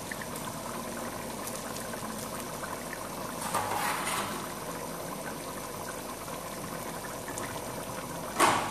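A pot of thick chana dal with chicken bubbling at a steady boil, a continuous bubbling hiss. About three and a half seconds in comes a brief louder noise as chopped green chillies and ginger go into the pot, and near the end a short, sharper, louder sound.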